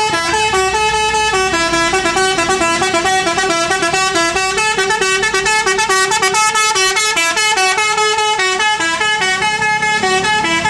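Indonesian bus 'telolet' multi-tone horn playing a quick melody of short notes that step up and down in pitch without a break.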